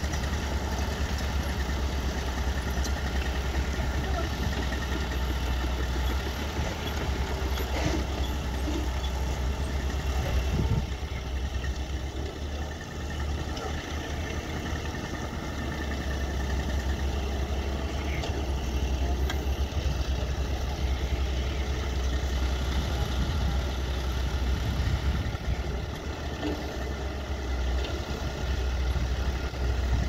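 An engine running steadily at idle with a low rumble and no change in speed.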